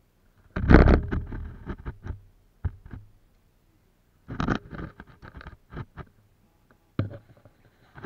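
Close handling noise from a camera being moved and reframed: scraping, rustling and knocking in several bursts, the loudest about a second in.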